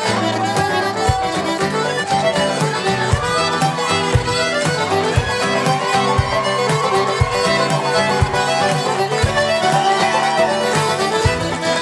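Lively Irish traditional dance tune with a fiddle carrying the melody over a steady low beat that lands about once a second.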